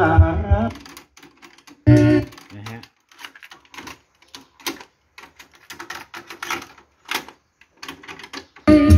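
Clicks and clacks of a cassette being swapped in a Pioneer CT-W606DR double cassette deck: the cassette doors open and shut, the tape is pulled out and pushed in, and the transport buttons are pressed. Music playing from the deck stops just after the start, a short snatch of music sounds about two seconds in, and music with singing starts again near the end.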